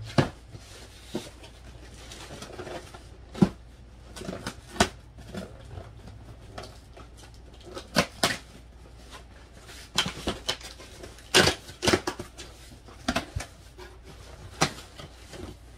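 Cardboard shipping box being pulled and torn open by hand: a string of irregular sharp knocks, rips and rustles, busiest about ten to twelve seconds in.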